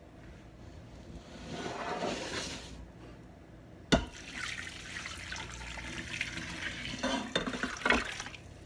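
Beef bones and broth being poured from a pressure cooker pot into a stainless steel stockpot: liquid splashing, with a sharp metal clank about four seconds in and heavier thuds near the end as the meat slides out.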